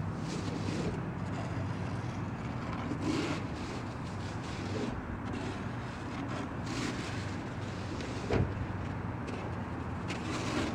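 Snow shovel scraping and pushing snow along a sidewalk, faint and intermittent, over a steady low hum of street traffic, with one sharp thump about eight seconds in.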